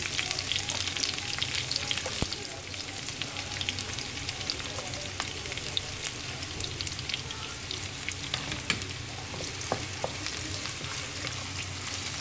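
Sliced onions sizzling in hot olive oil with mustard seeds in a non-stick wok, a dense hiss with scattered sharp crackles. It is loudest just after the onions go in and settles a little after about two seconds.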